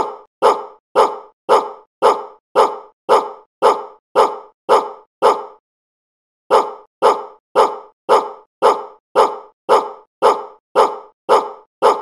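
A single recorded dog bark repeated about twice a second, each bark identical. A run of eleven barks stops about five and a half seconds in, and after a pause of about a second another run starts and carries on past the end.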